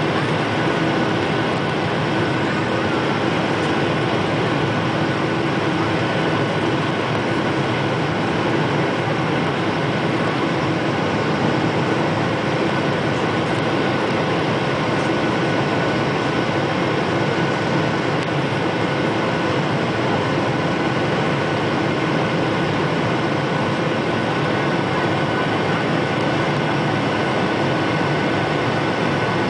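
Steady cabin noise of a Boeing 737-800 in the climb after takeoff: the CFM56-7B turbofan engines and rushing air, heard from inside the cabin by the wing, with a faint steady high whine running through it.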